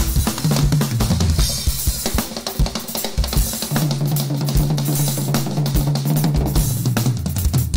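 Two drum kits played at once in a fast drum battle: dense snare and bass-drum strokes with cymbal crashes, over a low held note.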